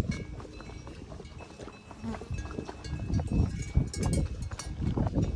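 Cowbells clanking on grazing livestock, short metallic rings that come irregularly, over low uneven thumps close to the microphone.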